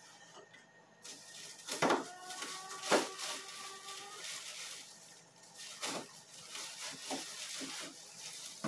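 Frozen sacolé ice pops in plastic bags rustling and knocking against each other as they are picked out of a freezer, with a few sharper knocks.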